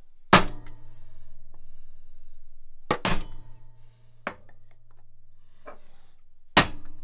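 Hammer striking a pin punch held against a Wilton bullet vise body: three sharp metallic blows about three seconds apart, each ringing on briefly, with a lighter tap between the second and third. The punch is trying to drive out a tiny pin that will not budge.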